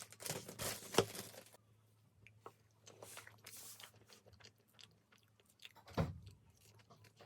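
Close-up eating sounds: a person biting and chewing crunchy food, with scattered small crunches. A rustle in the first second and a half, a sharp knock about a second in, and a louder thump about six seconds in.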